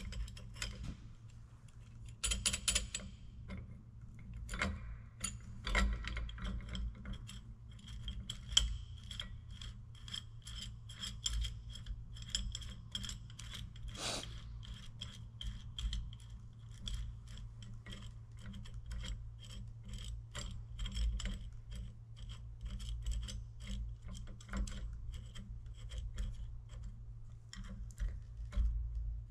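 Metal hand-tool work on a tractor PTO housing: bolts, a tool plate and small parts clinking and scraping as a puller is fitted to compress the housing for snap-ring removal. From about eight seconds in comes a long run of quick, even metallic clicks.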